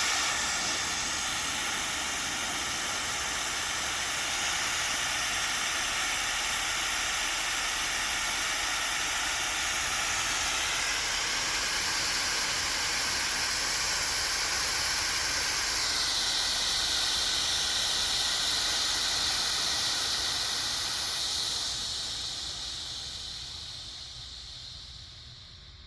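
Front air-ride suspension bags being aired out: a steady hiss of escaping air that shifts in tone about two-thirds of the way through and tapers off near the end as the bags empty.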